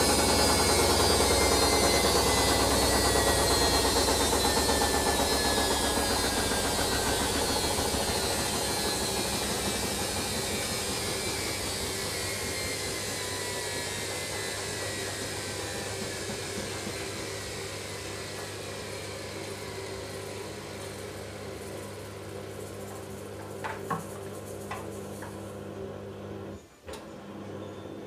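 Hoover Dynamic Next 1400-spin washing machine winding down from its final spin: the motor and drum whine falls steadily in pitch as the sound fades. A few clicks come near the end, then a brief dropout leaves a steady low hum.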